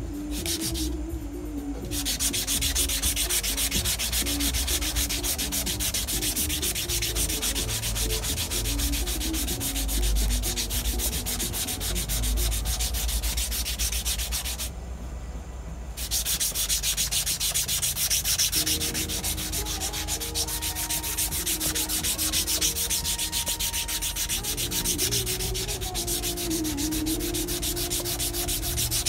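A wooden knife handle being sanded by hand, with rapid back-and-forth strokes. The sanding starts about two seconds in and stops briefly about halfway through.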